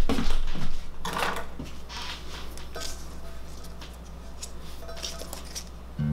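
Light clicks, taps and rustles of kitchen handling on a marble countertop as vegetable stalks are laid out and kitchen scissors are picked up, busiest in the first second or so.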